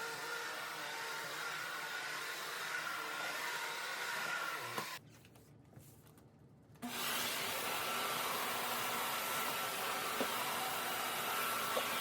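Vacuum cleaner motor running with a steady whir. It is switched off about five seconds in and switched on again almost two seconds later.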